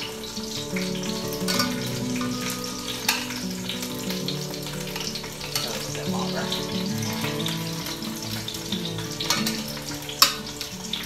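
Halved onions sizzling and frying in hot olive oil in an enameled cast-iron Dutch oven. A few sharp clicks of metal tongs against the pot, the loudest about ten seconds in.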